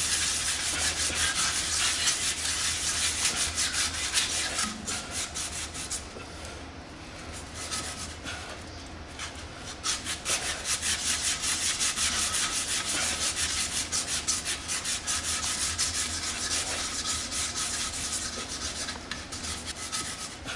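Emery cloth scrubbed back and forth on copper pipe ends in rapid strokes, cleaning the old pipe to bright metal so the solder will take. The scrubbing slackens about six seconds in and picks back up about three seconds later.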